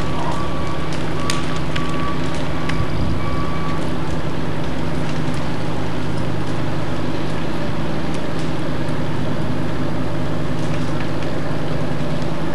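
An engine running steadily, a continuous low hum with scattered light clicks. A faint high tone comes and goes during the first few seconds.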